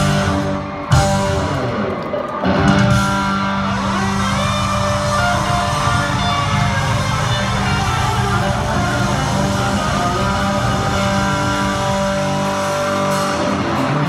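Live country-rock band music led by electric guitar, with drums. Sharp band hits about one and two and a half seconds in, then long held guitar notes.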